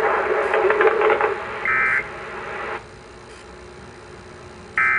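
Two short bursts of Emergency Alert System digital data tones, the end-of-message code that closes an EAS test: one about a second and a half in, another right at the end. Under the first there is a crackly, static-like noise that drops off sharply a little before three seconds in.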